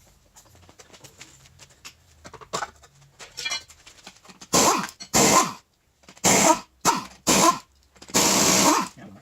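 Pneumatic impact wrench on the truck's wheel lug nuts, running in six short bursts, the last and longest near the end, after a few quiet seconds of light clicks.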